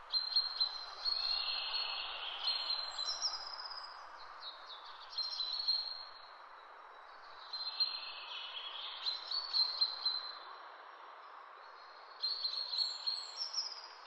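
Birds singing in short phrases of high chirps and trills, a new phrase every few seconds, over a steady soft hiss.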